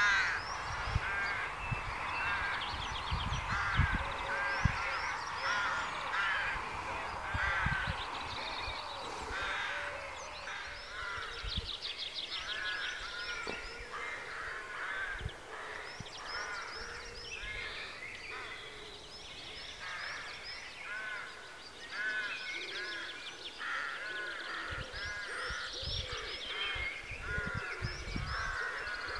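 A large flock of crows cawing, many harsh calls overlapping in a continuous chorus.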